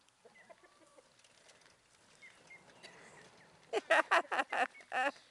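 Pekin duck quacking, a quick loud run of about six quacks starting about three and a half seconds in. Faint small-bird chirps sound before it.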